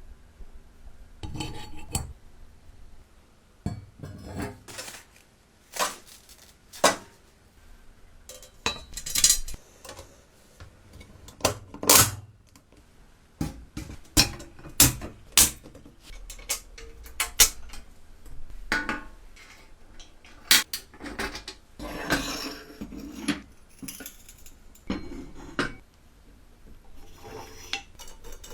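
Metal parts of a hand-cranked antique potato peeler clinking and knocking as they are fitted back together during reassembly: irregular sharp clicks and clanks with a few short scrapes.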